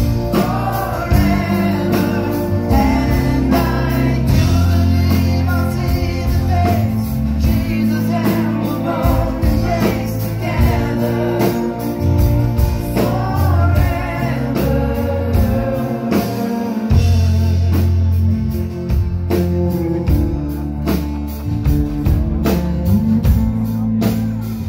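Live rock band playing loudly through a club PA: sung vocals over bass guitar, acoustic guitar and drums, with a strong bass line and steady drum hits.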